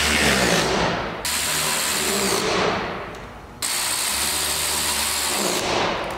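Handheld power drill running in three bursts of about two seconds each, with short pauses between. The second and third bursts tail off as the trigger is let go.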